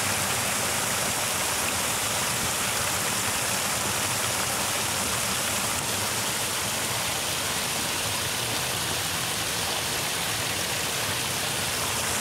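Muddy water running steadily through a shallow channel, an even, unbroken rush of water noise.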